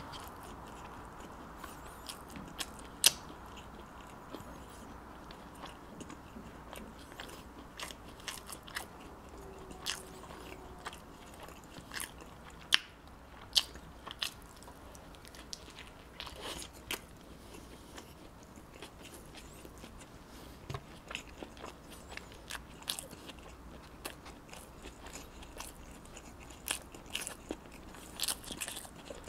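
Close-miked eating of pizza bread: a person biting and chewing, with many irregular sharp mouth clicks, the loudest about three seconds in.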